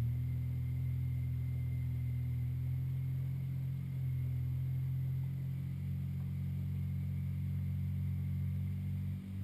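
Polaris RZR side-by-side's engine idling steadily, a low even hum heard from inside the cab.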